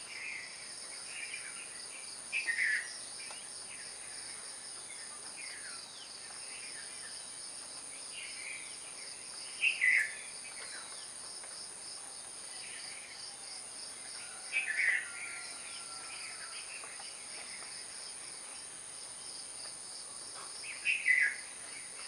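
Steady high chirring of insects, with a bird giving short bursts of quick falling calls four times, each louder than the insect background.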